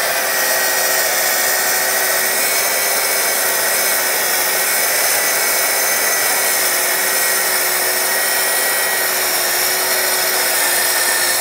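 TICHOP TPS-140BL-B cordless plunge saw running at full speed and cutting through 30 mm MDF along its guide rail: a steady whine held at one pitch over the noise of the blade in the board.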